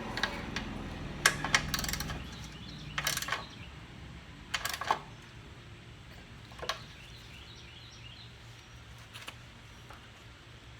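Irregular sharp metal clinks and knocks of hand tools and bolts while a lawnmower gas tank is being bolted on. They come closely in the first few seconds and grow sparser later.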